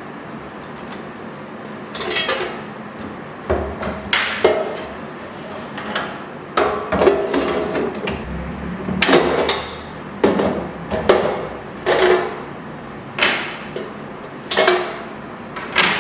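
Repeated hard knocks and clatters, about a dozen at irregular intervals, some ringing briefly.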